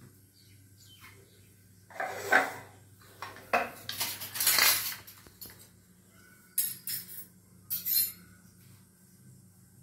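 Kitchen bowls and utensils clinking and scraping on the counter in several short bursts: one about two seconds in, a longer rustling clatter around the middle as a hand brushes over the phone, and two short clinks later on.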